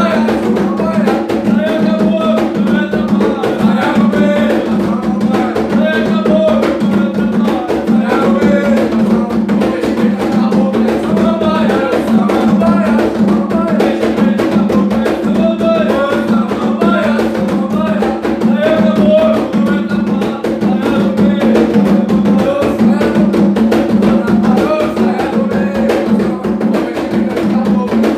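Two atabaques, tall wooden hand drums, played with bare hands in a steady, driving Afro-Brazilian toque rhythm, with a male voice singing a cantiga over the drumming.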